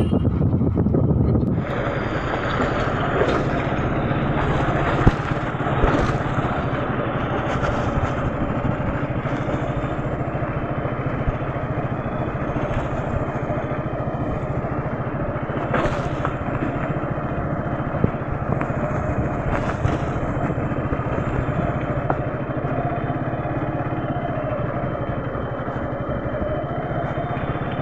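Vehicle running steadily as it travels along, with wind and road noise on the microphone.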